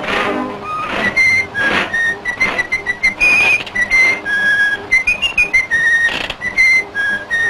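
A tune whistled in short, high notes that step up and down in pitch, with a sliding note about five seconds in. Breathy rushes of air sound between some phrases.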